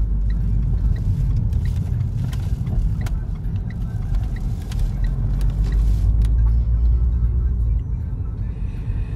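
Steady low rumble of a car on the move, with faint light ticks now and then.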